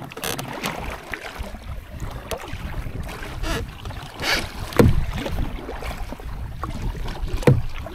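Double-bladed paddle strokes splashing and dripping as a sit-on-top kayak is paddled along, with wind buffeting the microphone. Two louder low thumps stand out, about five seconds in and again near the end.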